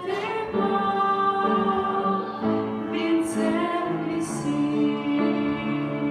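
Female voices singing a song with instrumental accompaniment, holding long notes.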